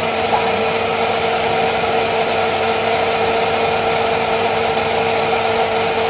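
Small personal blender running steadily while blending a smoothie, its motor holding one constant pitch with no change in speed.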